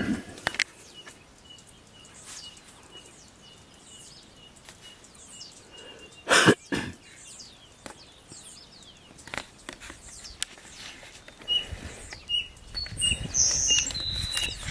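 Codorna piriri, a small tinamou, calling a long series of short high piping notes, about two a second, which pause for several seconds in the middle and then resume; other birds chirp faintly. A sharp knock about six and a half seconds in is the loudest sound, and low rumbling noise comes in near the end.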